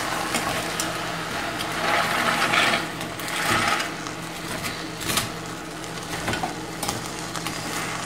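A wooden spoon stirring frozen cooked white beans into sizzling tomato and onion in a steel pot: a steady sizzle that swells as the spoon turns the mixture, with a few sharp knocks of spoon and beans against the pot near the end.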